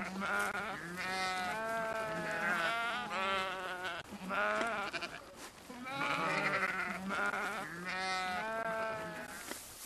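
Wavering, bleating animal calls in two bouts, a few seconds each, with a short pause between.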